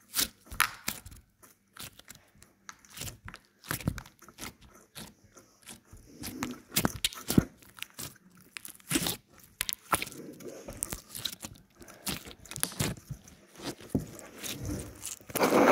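Hands squishing and kneading slime: irregular sticky clicks, crackles and small pops. A dog barks right at the end.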